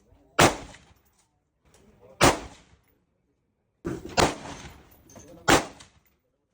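Gunshots fired one at a time at a slow pace, four loud shots about one and a half to two seconds apart, each with a short ringing tail, and a softer shot just before the third.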